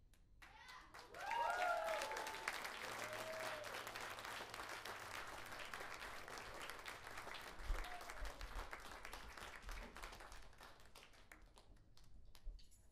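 Audience clapping and cheering, with a few whoops about a second in; the applause thins and fades away near the end.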